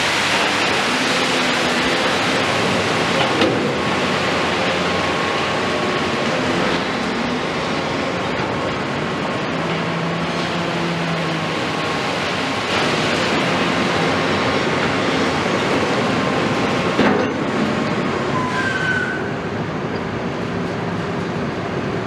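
Gravel sliding and pouring out of a tipper truck's raised bed, a steady rushing noise over the running diesel engine and hydraulics of a CAT 329E excavator, with faint whining tones. A single sharp knock comes about three-quarters of the way through, and the rushing thins out soon after.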